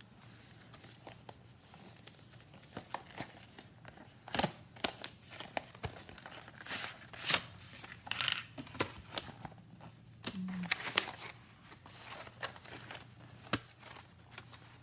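Plastic and paper packaging of a screen protector kit crinkling and tearing as the box is opened and its contents handled. There are irregular rustles and sharp clicks, starting a couple of seconds in and loudest around the middle.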